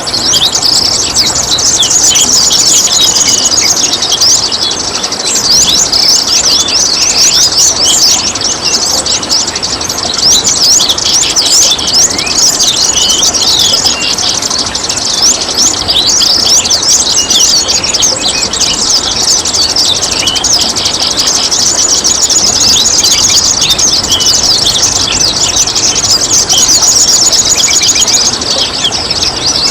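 Many small birds chirping and twittering densely and without pause over a steady trickle of running water.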